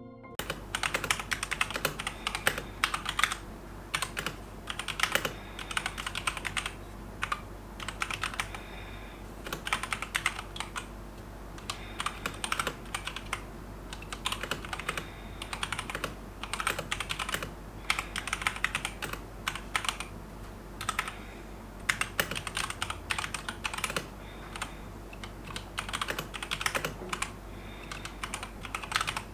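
Keychron K2 V2 mechanical keyboard with tactile Gateron Brown switches being typed on, keystrokes clacking in quick runs of one to two seconds with short pauses between them.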